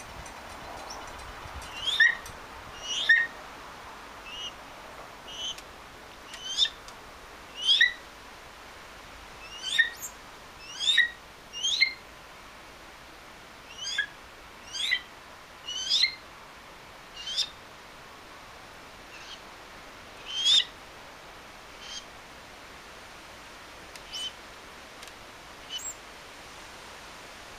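A bird's short, sharp calls, each sliding down in pitch, repeated about once a second with a few longer gaps, starting about two seconds in and stopping shortly before the end.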